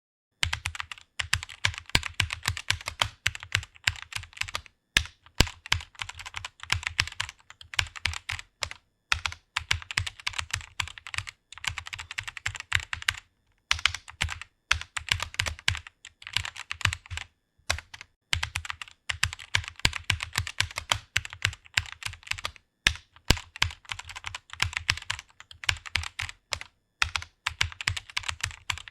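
Fast typing on a computer keyboard: rapid runs of key clicks, several a second, broken by short pauses of about half a second.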